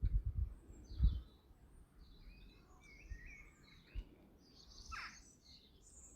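Small birds chirping and twittering, faint and scattered, with a few low thumps in the first second and a single knock about four seconds in.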